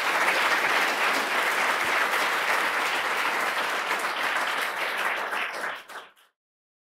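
Audience applauding steadily, fading out about six seconds in.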